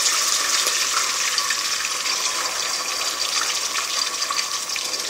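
Chopped onions frying in hot oil in a pot, a steady sizzle.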